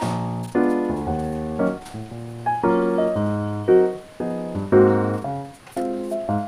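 Background piano music: chords and short melodic phrases, each group of notes struck together and fading.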